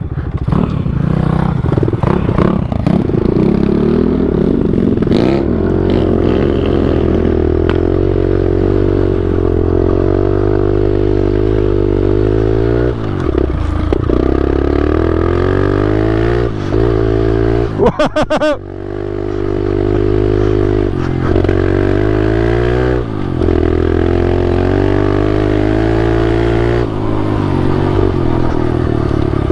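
Kawasaki KLX 110L pit bike's small four-stroke single-cylinder engine running under way, its pitch repeatedly rising and dropping as the throttle is opened and eased off.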